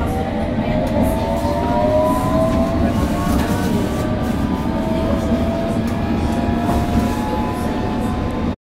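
London Underground District Line train heard from inside the carriage while running: a steady rumble of wheels on track, with several whining tones rising slowly in pitch over the first few seconds. The sound cuts off suddenly near the end.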